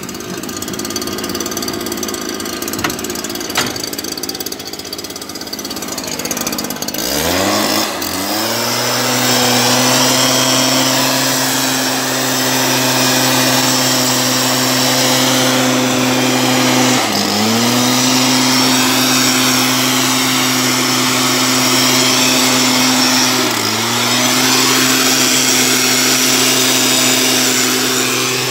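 Stihl backpack mist blower's two-stroke engine running at low revs, then throttled up about seven seconds in to a steady high-pitched run as it blows spray mist. The revs dip briefly twice and drop back at the very end.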